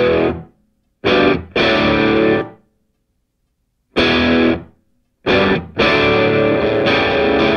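Rock music: distorted electric guitar chords struck and cut off with silent gaps between them, then held on without a break from about six seconds in.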